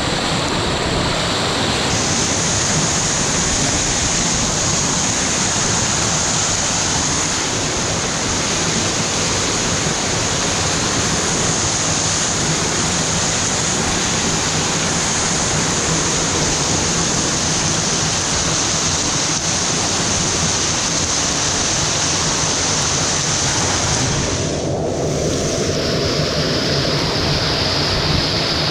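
Eas Chia-Aig waterfall: a loud, steady rush of falling water, briefly muffled about 24 seconds in.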